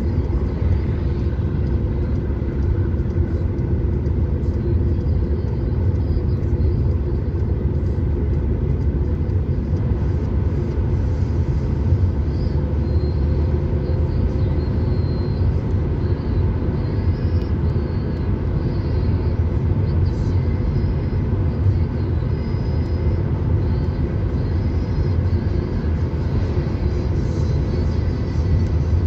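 Car driving at steady speed on an open road, heard from inside the cabin: an even, low road and engine rumble that does not change.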